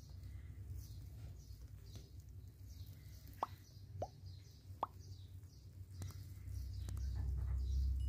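Three short, quickly falling pops about half a second apart, about halfway through, from a subscribe-button animation's sound effects, over a faint low rumble that grows louder near the end.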